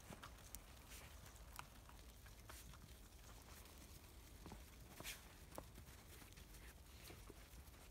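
Near silence with faint, scattered crunches of Labrador puppies' paws and noses in fresh snow.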